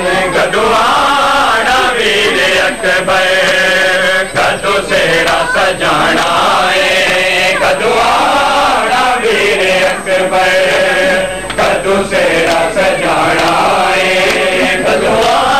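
Voices chanting a noha, a Shia mourning lament, in long melodic phrases that rise and fall, with short breaks between lines.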